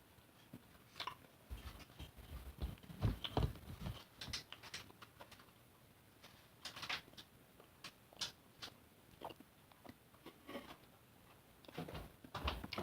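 Irregular small clicks and taps of handling, with a few soft low thumps about three to four seconds in.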